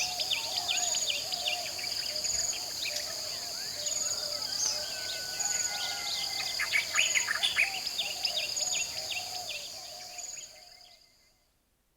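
Tropical jungle dawn chorus: many birds chirping and calling over a steady high-pitched insect drone, with a short insect trill repeating about once a second and a lower warbling call beneath. It all fades out near the end.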